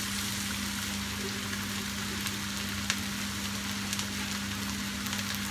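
Steady sizzling hiss from pans cooking on a gas hob, a pot of rice with ghee in the bottom and a pan of curry beside it, over a steady low hum, with a few faint clicks.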